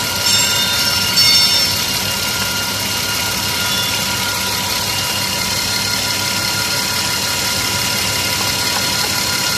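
Car engine idling steadily, with a couple of brief high-pitched sounds in the first second and a half.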